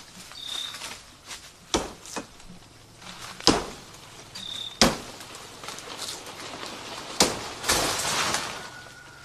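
Four sharp woody knocks a second or two apart, with rustling in the undergrowth between them and a longer rustle near the end. A short high chirp sounds twice.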